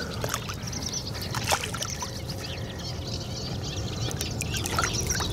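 Shallow margin water trickling and slopping with small splashes as a large mirror carp is held in it and released, with birds chirping steadily over the top.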